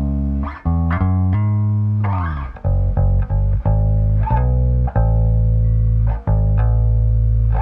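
Electronic dance music with a heavy, deep bass line of held notes that change every half second or so, with short gaps between some notes and a downward pitch slide about two seconds in.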